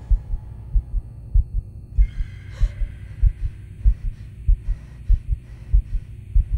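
Heartbeat sound effect: a steady, fast double thump of about a hundred beats a minute over a low hum. About two seconds in, a faint high, thin drone comes in beneath it.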